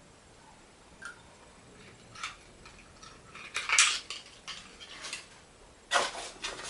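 Handling noises of small cosmetic packaging: a few light clicks and taps, the loudest a little under four seconds in, then denser rustling and clatter from about six seconds in as items in the box are moved about.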